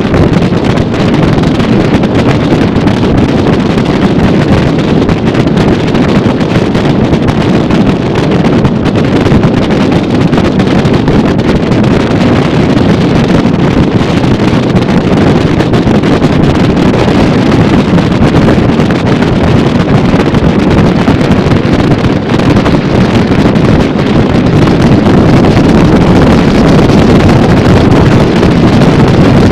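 Loud, steady rush of wind buffeting the microphone on a motorboat cruising at about 40 mph, blended with the sound of the boat running over the water. There are no breaks or changes.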